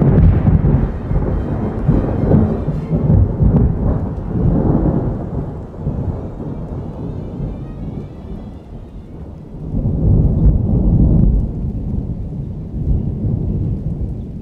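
Loud, deep rumbling noise that swells and fades in waves. It is loudest in the first few seconds and again about ten seconds in, and quieter in between.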